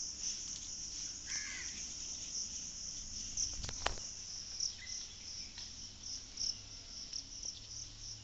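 Crickets chirring steadily in a high pulsing band. A short bird call comes about a second and a half in, and a sharp knock near four seconds.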